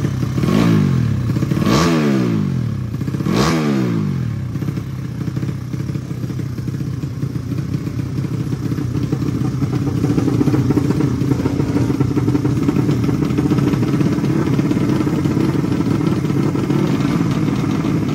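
Drag-racing motorcycle engine revved three times in quick blips during the first four seconds, then left running at a steady idle.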